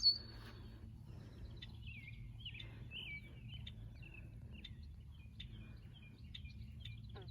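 Songbirds chirping, a run of short whistled notes and quick downward-sweeping chirps, over a steady low outdoor rumble. There is a brief, louder high squeak at the very start.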